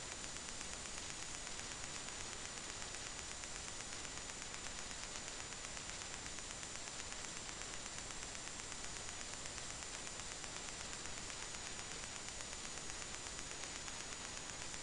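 Steady hiss of an idle audio input with no sound on it, with a thin high whine running through it.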